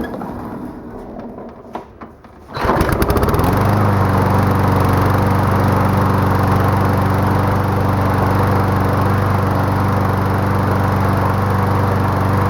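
Briggs & Stratton 190 single-cylinder mower engine starting about two and a half seconds in, revving up over a second, then running steadily at its fixed governed speed.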